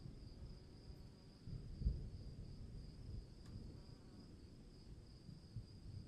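Insects, likely crickets, chirring in a steady, slightly pulsing high drone, over a low uneven rumble from the storm that swells briefly about two seconds in.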